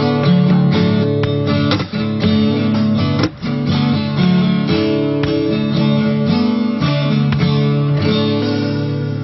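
Background music: acoustic guitar strummed in a steady rhythm, fading near the end.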